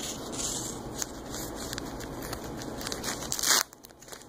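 Crinkling and crackling of a tampon's plastic wrapper being handled and squeezed, stopping abruptly near the end.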